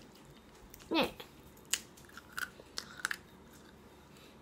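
Chewing on a jackfruit vegetable chip, with a few sharp crunches of the bites. It is one she calls tasty but not crisp. About a second in the eater gives a short falling 'mm'.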